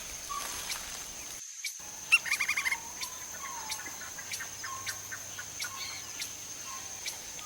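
Lineated woodpecker calling a rapid series of about eight loud, evenly spaced notes, starting about two seconds in, with a few softer single call notes around it. A steady high-pitched tone runs underneath, and the sound drops out briefly just before the call series.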